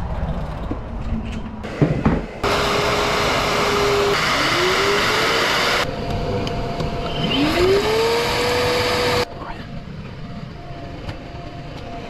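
Red Milwaukee FUEL wet/dry vacuum switched on with its hose on an air conditioner's condensate drain line, sucking out a sludge clog. Its motor runs loud and steady, with its pitch sweeping up twice as the load changes, and it cuts off suddenly a few seconds later. A few knocks come just before it starts.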